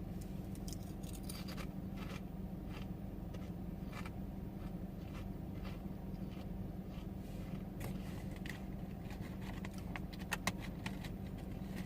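Steady low hum of a parked car running, heard from inside the cabin, with faint scattered clicks and small handling noises and a few louder ticks about ten seconds in.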